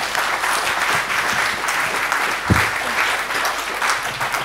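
Audience applauding at the close of a talk, a dense, steady patter of many hands clapping. A single dull low thump sounds about halfway through.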